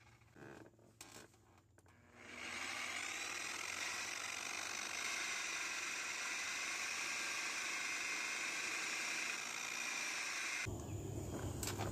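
Electric rotary polisher buffing oxidized fiberglass gelcoat with compound. It starts about two seconds in, runs with a steady whir, and stops shortly before the end.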